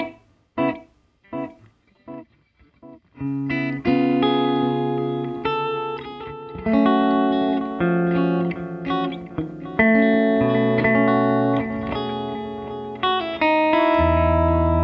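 Electric guitar through an EarthQuaker Devices Dispatch Master pedal set to delay only, reverb off. One picked note repeats about every 0.7 seconds, each echo fainter. A melodic line of held notes and chords follows, with echoes trailing each note, and a low chord is struck near the end.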